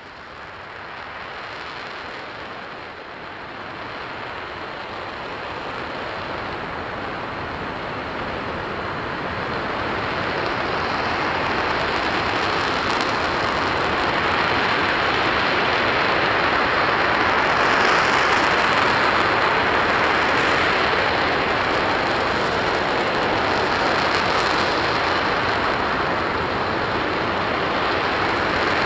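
RS-25 liquid-hydrogen/liquid-oxygen rocket engine firing: a steady rushing roar that grows louder over the first ten seconds or so, then holds steady.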